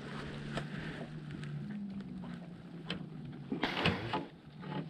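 Small clicks and knocks of tackle being handled in a fishing boat over a low steady hum, with a brief louder rustle about three and a half seconds in.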